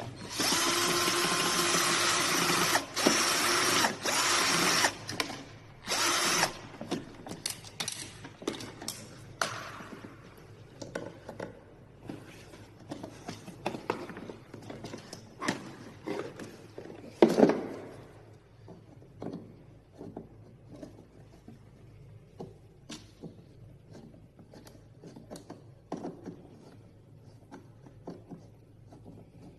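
A small electric motor whirring steadily for about five seconds, then in a few short bursts, followed by scattered clicks and rattles of parts being handled, with one sharp knock about seventeen seconds in.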